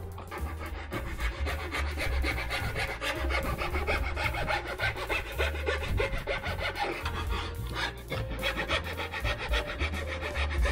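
Hand sanding or rasping on the wooden deck of a cruiser skateboard: repeated scraping strokes on wood.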